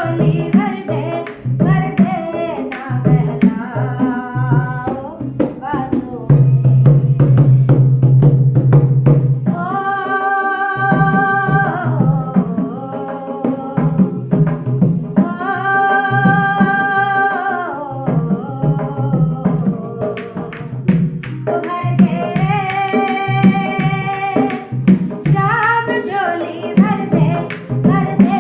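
A woman singing a song over drum accompaniment, holding two long notes midway.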